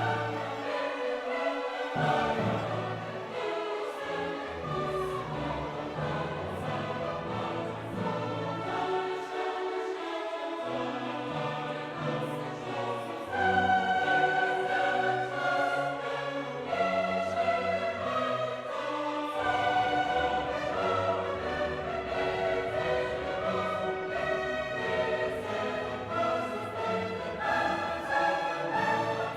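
Background music: orchestral piece with choir singing in an operatic style, sustained notes shifting in pitch, continuing throughout.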